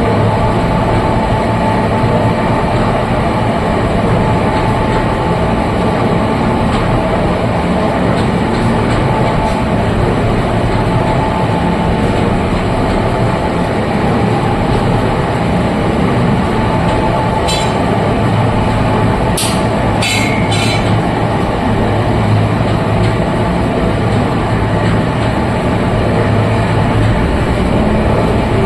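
Oil expeller (screw oil press) running steadily under load: a loud, continuous mechanical din with a constant hum. A few short, high squeaks come about two-thirds of the way through.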